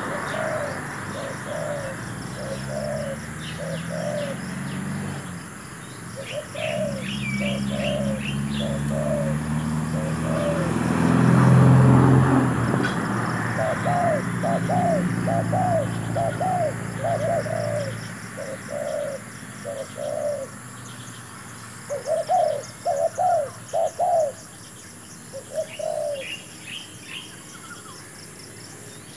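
Spotted doves cooing over and over in phrases of several low hooting notes. Small birds twitter briefly twice. A low rumble swells to its loudest near the middle and dies away about two-thirds of the way through.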